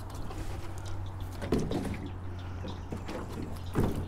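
Water sloshing and dripping against a jon boat's hull as a person shifts weight in the boat, with two louder splashes or knocks, one about a second and a half in and one near the end. A steady low hum runs underneath.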